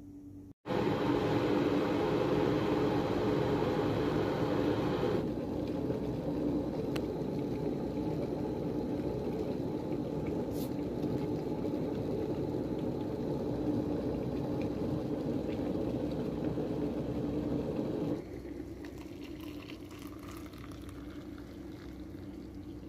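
Kettle heating water to the boil, a steady noise. About eighteen seconds in it gives way to hot water being poured from the kettle into a mug.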